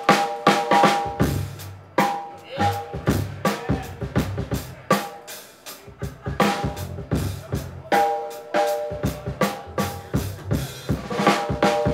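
Live jazz quartet playing an up-tempo tune, the drum kit leading with snare and bass drum hits over a walking upright bass line and held keyboard chords.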